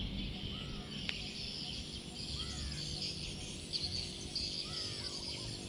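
Steady high insect chirring, with a bird repeating a short, curved chirp every second or two and a single faint click about a second in.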